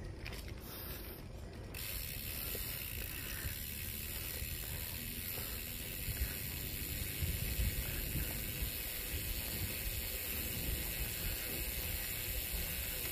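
Bicycle freewheel ratchet clicking steadily as the rider coasts, over a low rumble of wind and tyres on the road. The clicking starts about two seconds in.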